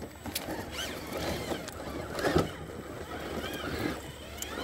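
Electric motor and geared drivetrain of a scale RC crawler truck whining in short pulses, rising and falling in pitch as it crawls over rocks. A few sharp clicks come from tires and chassis knocking on stone.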